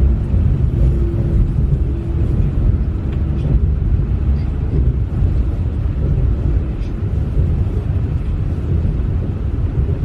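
Small mountain river flowing: a steady, deep wash of running water.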